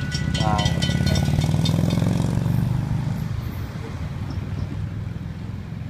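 Railroad grade-crossing bell ringing rapidly, then stopping about two seconds in as the gates go up, over a low vehicle engine rumble that fades away.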